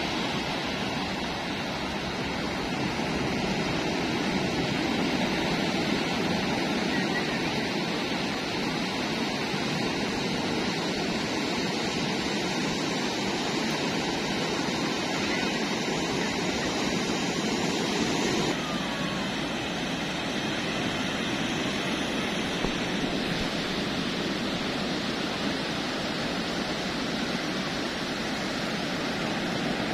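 Ocean surf breaking on the shore, a steady rushing noise that eases slightly about two-thirds of the way through.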